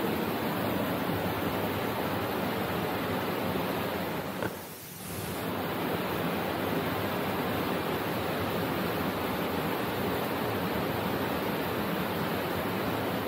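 Steady rush of Ryuzu Falls, white water cascading over boulders, dipping briefly about four and a half seconds in.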